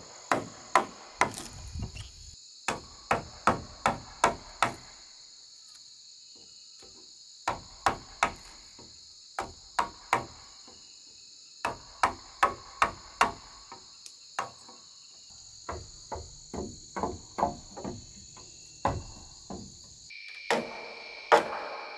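Wooden mallet striking a wood-handled steel chisel to cut a joint into a wooden roof beam: runs of sharp knocks, two or three a second, with short pauses between runs. Insects buzz steadily underneath.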